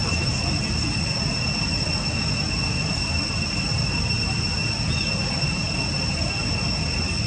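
Insects droning in one unbroken, steady high-pitched whine over a steady low rumble.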